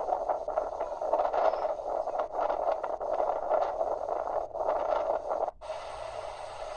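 Heavy rain and running water: a dense rushing noise with fine crackling spatter. About five and a half seconds in it cuts to a smoother, steadier hiss.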